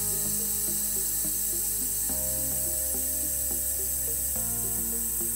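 Background music: sustained chords that change about every two seconds, with short repeated notes over them.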